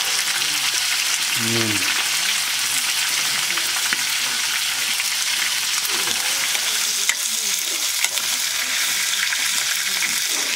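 Chopped meat sizzling steadily as it fries in a steel kadai over a wood fire, with two light clicks about two-thirds of the way through.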